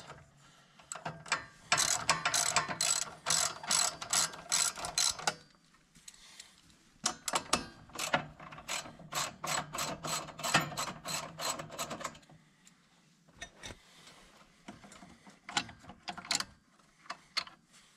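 Hand ratchet wrench clicking as it loosens the nuts on a tractor's battery hold-down bracket. Several clicks a second, in three runs with short pauses between, the last one fainter.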